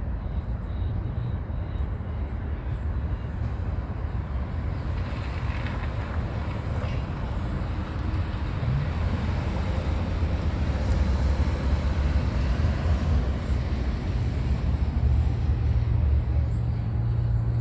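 Wind buffeting the microphone: a heavy low rumble under a rushing hiss that swells from about five seconds in.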